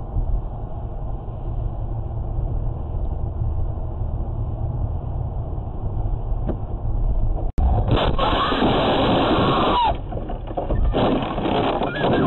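Steady road and engine rumble inside a car at highway speed. About seven and a half seconds in it breaks off into a sudden loud, harsh crash noise that lasts about two seconds and comes again near the end as the car slows.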